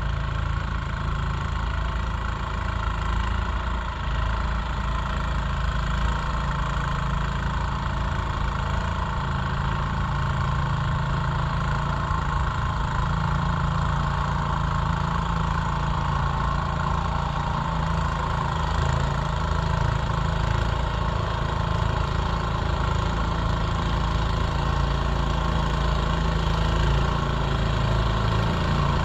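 Snowblower's 3.5 hp Briggs & Stratton single-cylinder engine running steadily without a break.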